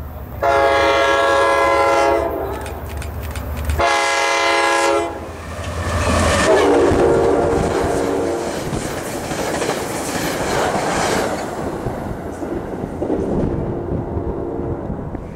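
NJ Transit commuter train sounding its horn as it passes: a long blast, then a short one, then two lower-pitched blasts. Under the horn, the wheels clatter and the train rumbles by.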